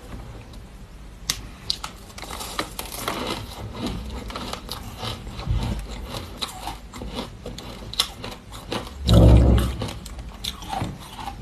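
Frozen matcha ice being crunched and chewed close to the microphone: scattered sharp cracks and crackling. A louder, dull thump comes about nine seconds in.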